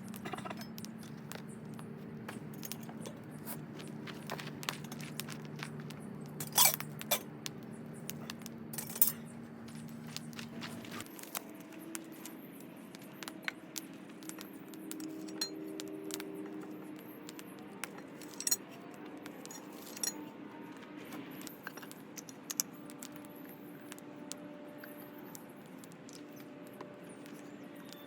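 Scattered metallic clinks and taps of camp cooking gear and utensils, a few of them sharper and louder. Underneath runs a steady low hum that changes about eleven seconds in.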